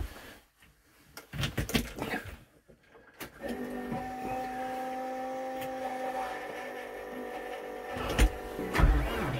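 A few clicks and knocks at the ignition switch, then a steady electric buzz with the key switched on for about five seconds, then near the end the TYM 654 tractor's diesel engine cranks and starts.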